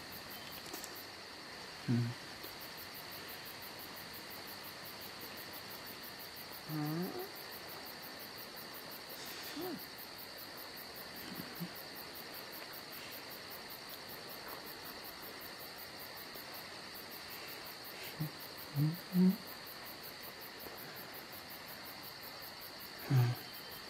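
Steady chirring of night insects such as crickets, a continuous high trill. It is broken a few times by brief, low vocal sounds.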